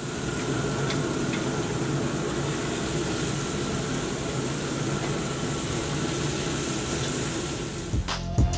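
Ground-beef burger patty sizzling steadily on the hot sear plates of a pellet grill, with a low steady hum underneath and a couple of light clicks about a second in. Music with drum hits comes in near the end.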